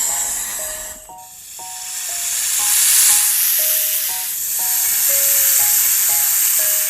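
Snake hissing in long drawn-out hisses, three in a row, the loudest about three seconds in, over a simple plinking children's tune.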